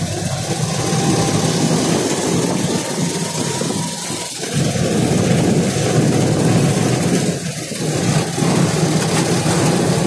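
Auto-rickshaw engine running steadily while the vehicle drives along, heard from inside the open passenger compartment.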